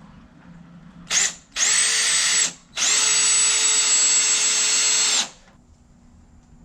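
Cordless drill driving a 2.5-inch screw with a Torx bit, in three runs of a steady motor whine: a brief blip, about a second of driving, then a longer pull of about two and a half seconds as the screw goes home.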